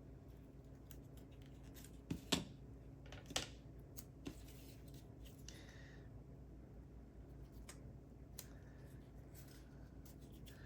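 High-temperature electronics tape being handled and pressed onto a laptop fan's cover: a few sharp clicks about two, three and four seconds in and again near eight seconds, with a soft crinkle near the middle, over a low steady hum.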